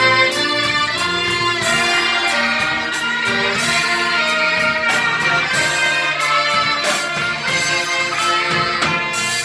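Orchestra playing a hymn, with violins to the fore and notes held long over a full ensemble.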